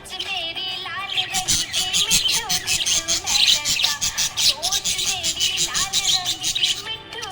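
Budgerigars chirping in a rapid, dense twittering chatter, thickest from about a second in until near the end, over background music with a gliding melody.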